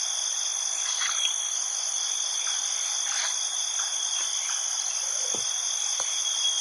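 Night-time chorus of crickets and other insects in tropical forest, trilling steadily at two constant high pitches over a hiss. Two faint, short, low knocks come near the end.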